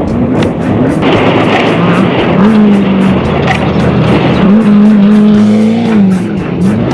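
Off-road race vehicle's engine revving up and down, holding high revs for a while about halfway through, over a steady noise of the running gear, with music playing underneath.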